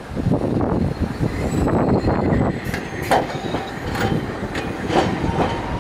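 Hankai Tramway Mo 701-type tram running past close by on street track: a steady rumble of steel wheels on rails, with sharp clacks about once a second over rail joints in the second half.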